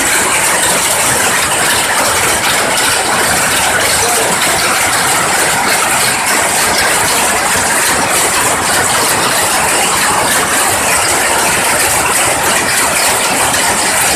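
Many power looms running at once: a loud, dense, steady mechanical clatter of rapid, overlapping beats.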